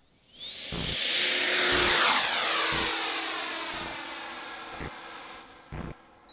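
Large RC model jet's engine: a rising high whine as it throttles up, then a loud whine and rush as the jet passes overhead, fading away over the last seconds.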